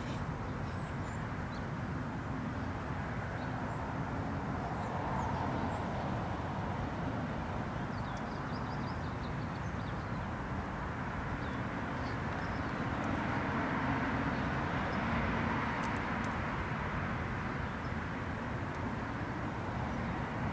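Distant road traffic: a steady low rumble that swells as vehicles pass, about five seconds in and again around the middle. A few faint high chirps over it.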